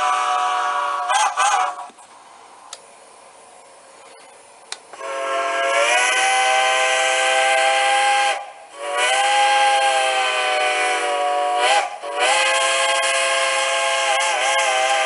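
Sampled steam locomotive chime whistle from a TCS WOW Sound model-railroad decoder, played through a small loco speaker with no deep bass. It sounds in long multi-tone blasts with bends in pitch. There is a pause of a few seconds of faint hiss after the first blast, then two more blasts with short breaks between them.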